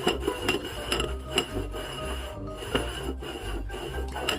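Background music with a low bass line, over repeated short, sharp scratchy ticks.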